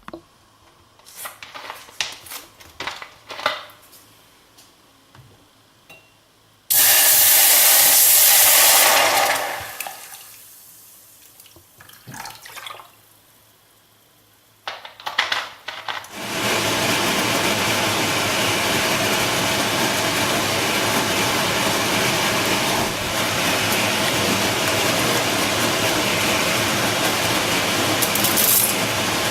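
Running water: a few light clicks and knocks, then a sudden loud gush that dies away after a couple of seconds, more clicks, and then a steady rush of running water.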